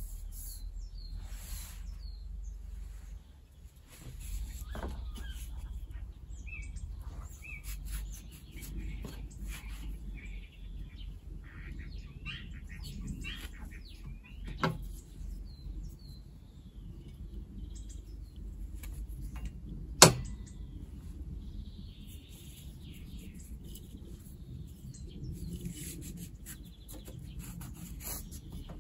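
Paracord being handled and pulled apart by hand on a wooden tabletop: soft rustles and scattered light clicks. There is a sharp knock about twenty seconds in and a smaller one about fifteen seconds in. Faint bird chirps can be heard in the background.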